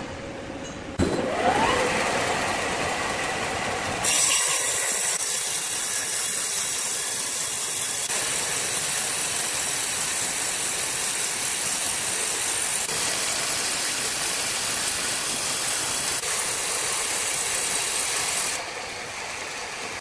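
Horizontal band sawmill cutting a slab from a large hardwood log: a machine starts with a short rising tone about a second in, then from about four seconds the band blade runs through the wood with a loud, steady sawing noise that stops abruptly near the end.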